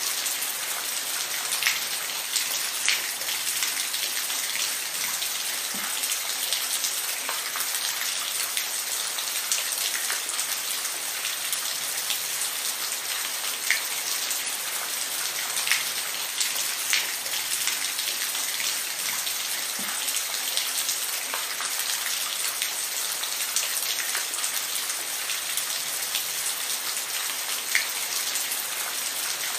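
Steady rain falling, an even hiss with individual drops pattering on a surface every second or so.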